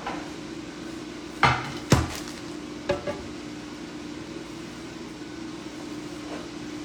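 Kitchenware being handled: two loud clunks about half a second apart, then two lighter clicks, over a steady low hum.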